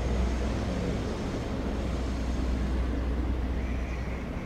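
Diesel engine of a railway catenary maintenance vehicle running steadily as it moves slowly along depot tracks, a constant low rumble.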